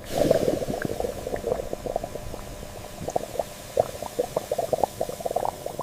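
Acid bath bubbling around rough diamond stones: a dense run of small, irregular liquid pops.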